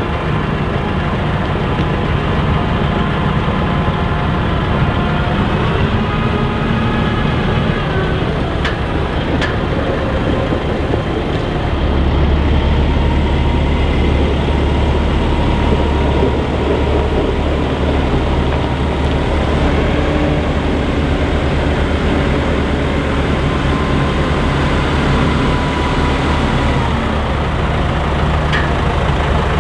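Heavy diesel engine running steadily, its low note deepening and strengthening about twelve seconds in.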